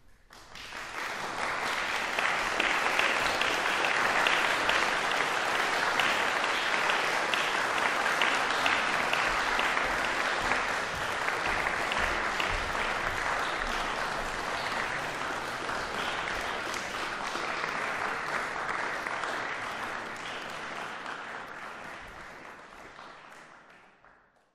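Audience applauding, starting suddenly as the piano music ends, holding steady, then dying away near the end.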